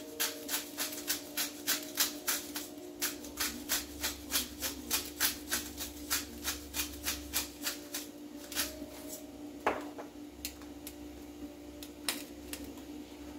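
Hand-twisted pepper mill cracking black peppercorns: a rapid, regular clicking at about four clicks a second that thins out and stops about eight seconds in. A steady low hum runs underneath.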